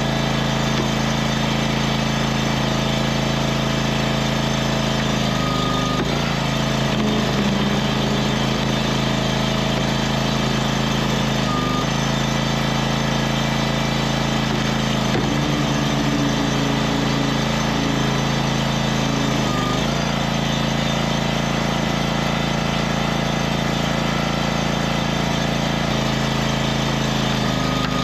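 Wood-Mizer FS500 log splitter's engine running steadily, its pitch sagging briefly about four times.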